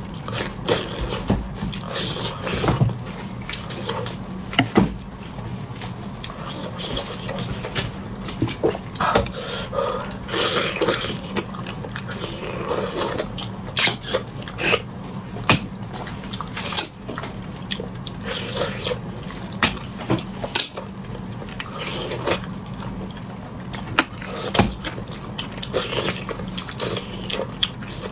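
Wet sucking, slurping and smacking mouth sounds of beef bone marrow being eaten, with many irregular sharp clicks, over a steady low hum.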